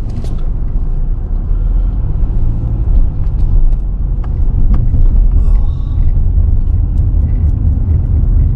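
Steady low rumble of a car driving slowly, heard from inside the moving vehicle.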